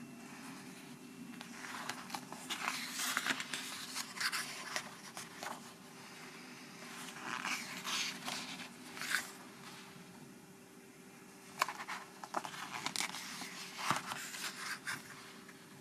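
Paper pages of a photo book being turned and flicked by hand: bursts of paper rustling and fingers sliding over the pages, in several clusters, over a faint steady low hum.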